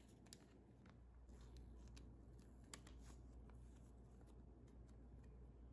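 Near silence with faint crinkles and light taps from a foil packet of nose pore strips being picked up and handled.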